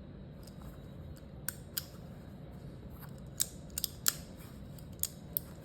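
Sharp metallic clicks from the action of a Smith & Wesson Model 34-1 .22 revolver being handled during reassembly, with the hammer spring just fitted. About eight clicks come at uneven intervals, several in quick succession around the middle.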